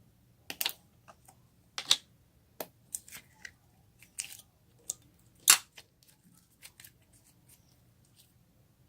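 Homemade slime being squished and worked, giving irregular sharp pops and crackles, the loudest about two seconds and about five and a half seconds in.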